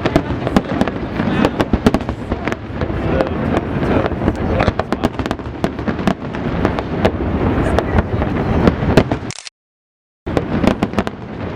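Fireworks display: rapid, overlapping bangs and crackles over a continuous rumble. The sound breaks off into complete silence for under a second about nine and a half seconds in, then resumes.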